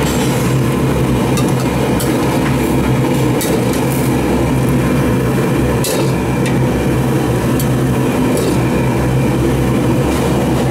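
Steady loud roar of a high-pressure gas burner firing under a wok, with occasional sharp clinks of a steel ladle against the wok and the metal serving bowl as spicy fish stew is ladled out.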